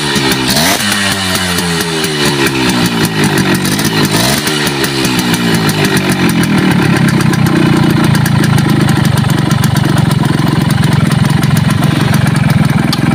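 Suzuki X4 motorcycle engine running through its exhaust with a home-made silencer insert fitted. It is blipped a couple of times with the revs falling away, then settles into a steady idle about halfway through.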